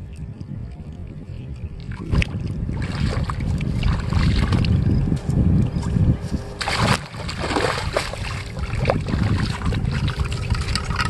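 Splashing in shallow water as a hooked fish thrashes at the surface and is hauled in to the bank by hand, with a sharp splash about seven seconds in. Wind rumbles on the microphone throughout.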